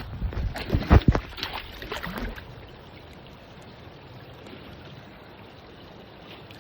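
Stream water splashing as a caught trout is let go into the creek: a few splashes in the first couple of seconds, the loudest about a second in, then the steady rush of the flowing stream.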